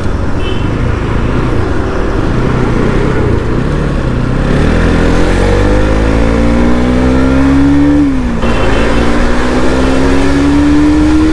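Bajaj Pulsar NS200's single-cylinder engine accelerating: low and steady at first, then rising in pitch from about four seconds in, dropping briefly at an upshift about eight seconds in, and rising again through the next gear.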